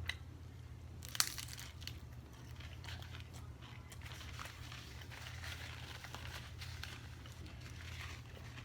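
Close-up chewing and crunching of a beef taco, with scattered crackles and one sharp crack about a second in, over a steady low hum.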